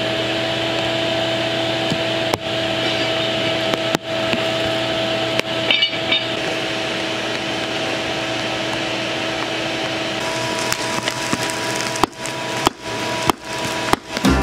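Forge fire of burning wood and charcoal crackling and spitting sparks under forced air, over the steady hum of the forge's air blower. The sound drops out briefly a few times near the end.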